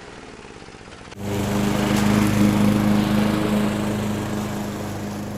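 A petrol lawn mower engine starts up abruptly about a second in after a faint hum, then runs steadily, easing off slightly toward the end.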